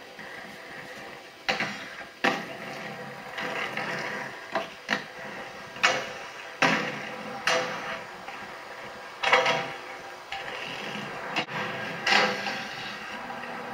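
Inline skate wheels rolling on pavement with a steady hiss, broken by about nine sharp clacks and scrapes as the skates hit and land on rails and ledges.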